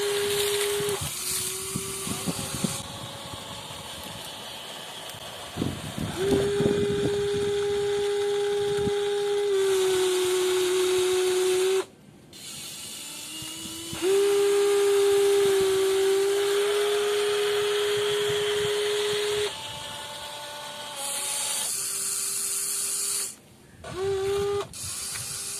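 Small electric motors and gearboxes of a WLToys 16800 metal RC excavator whining as the machine works, in stretches of a few seconds that stop and start again, the pitch dipping briefly under load. A few knocks and scrapes come through about six seconds in.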